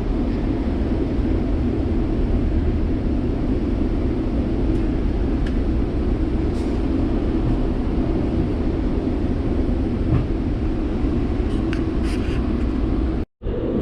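Passenger train running steadily along the track: a continuous rumble with a few faint clicks. The sound cuts out for a moment near the end.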